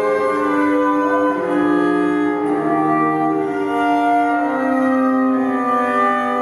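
Bowed cello playing slow, long held notes, several tones sounding together and moving to new pitches every second or two.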